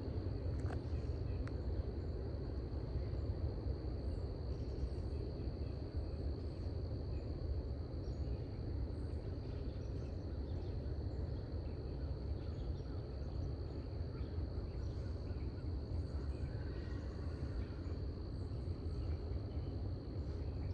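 Steady, high-pitched insect chorus droning without a break over a low, even background rumble, with a couple of faint clicks about a second in.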